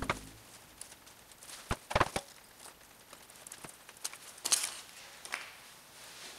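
Handling noise while wrapping a metal tool handle in grip tape: a knock at the start and a quick run of three knocks about two seconds in as the handle is set down and turned on the bench, then rubbing and scraping of the gritty tape and its paper backing as the tape is pressed down.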